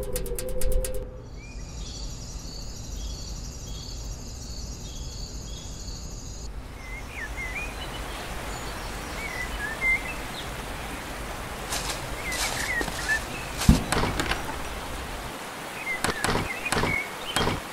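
A high, repeating pattern of tones for the first several seconds, then a steady outdoor hiss with scattered bird chirps. A run of knocks and thuds comes in the last third, the heaviest about two-thirds of the way through.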